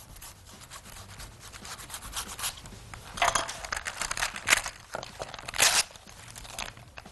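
Baking parchment paper rustling and crinkling as it is pulled off the roll and creased and torn by hand, in irregular strokes that grow louder in the second half.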